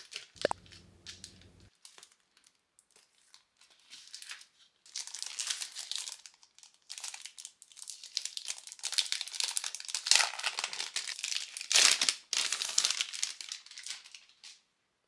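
Thin plastic shrink wrap crinkling and tearing as it is handled and peeled off a paper notebook, scattered at first and then dense from about five seconds in, loudest about ten and twelve seconds in.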